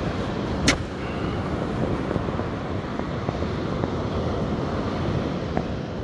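Breaking surf and wind buffeting the microphone in a steady rushing noise, with one sharp click about a second in.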